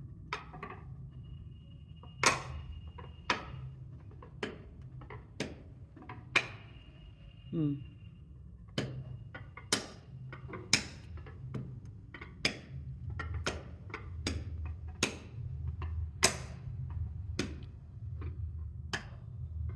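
A run of sharp clicks and taps from hard objects, irregular, roughly one every second, over a steady low hum.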